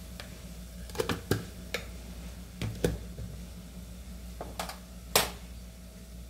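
Kitchen utensils and containers being handled: a scatter of sharp clicks and light knocks, about nine in all, the loudest about five seconds in, over a low steady hum.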